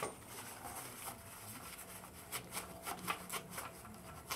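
Hand tools working on the motorcycle's rear wheel: light rubbing, with a quick run of small clicks in the middle.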